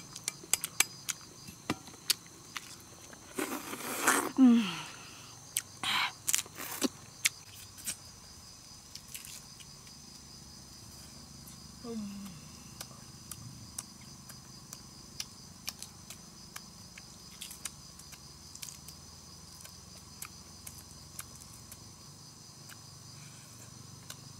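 Insects chirring steadily at a high pitch throughout. In the first several seconds there are many sharp clicks and a couple of louder crackling bursts, as a boiled eggshell is tapped and cracked against a sickle blade and peeled. A short falling hum of the voice comes about four seconds in and again near the middle.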